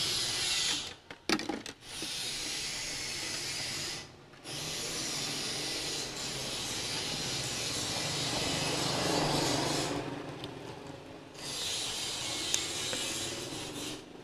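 Enamelled copper winding wire scraping and rubbing as it is drawn through the slots of a three-phase motor stator during rewinding: a steady hissing scrape in long stretches, broken by three short pauses.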